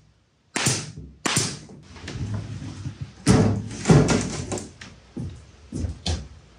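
Hollow knocks and thuds of a plywood cabinet being turned and shifted on a wooden workbench and loose plywood panels being handled. There are two sharp knocks in the first second and a half, then a close run of thumps in the middle.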